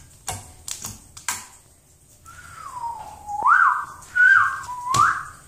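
A few sharp clicks in the first second and a half, then a person whistling a short tune: one clear note that glides down and steps up and down between a few pitches for about three seconds.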